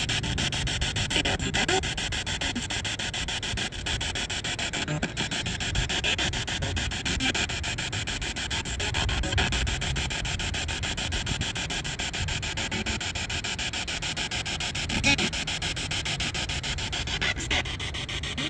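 Spirit box sweeping through radio stations: a steady stream of static and hiss, rapidly chopped into many short even pulses.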